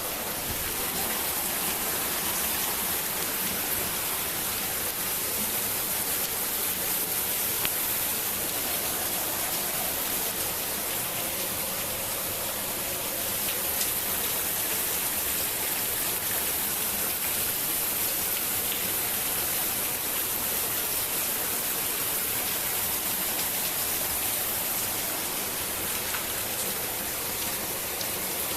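Heavy rain falling steadily, a dense even hiss with occasional faint drop ticks.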